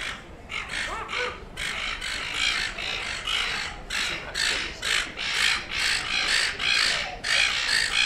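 Silver gulls squabbling: one rising call about a second in, then a fast run of harsh, squawking calls, about three a second.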